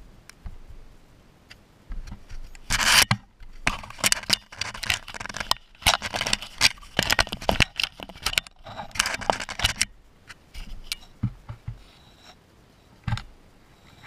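Baby striped skunks scratching and rubbing at the camera right against its microphone: dense scraping and clicking from about two seconds in until about ten seconds, then scattered clicks and a single knock near the end.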